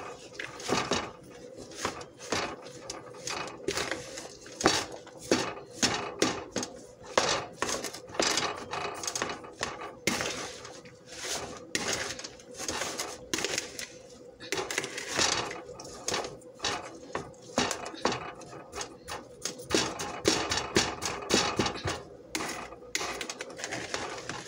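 A utensil knocking and scraping against a plastic mixing bowl in quick, irregular strokes as food is mixed by hand, over a faint steady hum.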